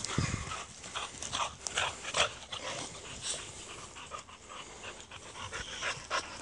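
Several boxer dogs playing together, making short, irregular dog noises one after another.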